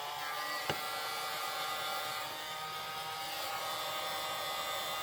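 Handheld electric heat gun running with a steady motor whine, warming the cord before taping; a sharp click about a second in.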